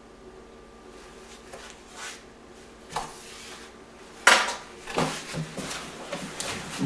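Cardboard box and plastic packaging inserts being handled and shifted: rustling and scraping, a sharp knock about three seconds in, and a louder clatter a little after four seconds.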